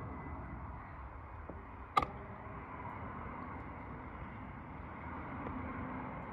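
Faint, distant rumble of an approaching jet airliner, an Airbus A350, with a low hum and a higher whine building slightly in the second half. A single sharp click about two seconds in.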